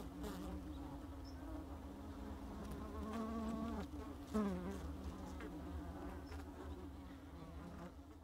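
Honeybees of an open-air colony built on exposed comb, buzzing steadily as a mass. Individual bees fly close past, their buzz sliding up and down in pitch, the loudest about four seconds in.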